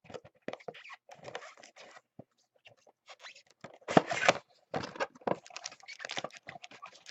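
Trading-card box packaging being handled and torn open: irregular crinkling and tearing with light knocks, loudest about four seconds in.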